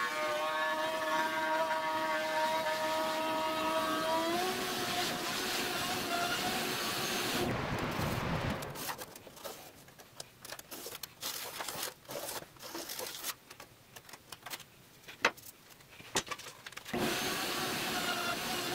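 Wood router running with a steady high whine while it cuts a dense ipe hardwood hoop; its pitch lifts a little about four seconds in. From about eight seconds it gives way to quieter handling, light knocks and rubbing, and near the end a router is running again.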